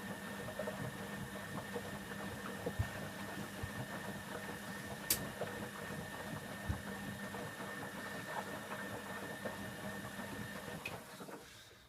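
Candy Aquamatic 1000T compact washing machine running an empty Cotton 60 descaling wash: a steady motor hum with light knocks from the drum, which stops about eleven and a half seconds in.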